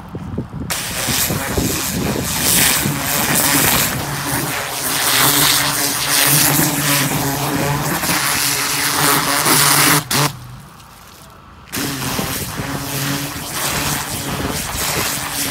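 Pressure washer running, its high-pressure water jet hissing and spattering as it cuts into the soil and tears up weeds by the roots, over a steady motor hum. The spray cuts off suddenly about ten seconds in, stays off for about a second and a half, then starts again.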